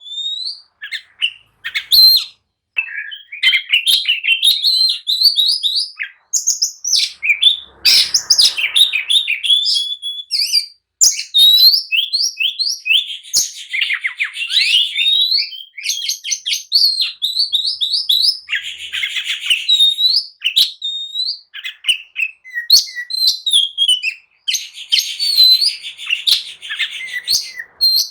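Oriental magpie-robin (kacer) singing in full, agitated song: a fast, unbroken stream of varied chirps and whistled glides, with a few harsh rasping notes mixed in.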